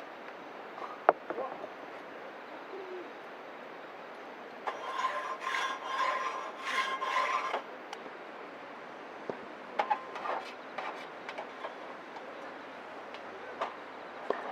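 Wood fire burning with a steady hiss and scattered sharp crackles and pops. About five seconds in, a louder hissing rush with a steady tone runs for about three seconds, then stops.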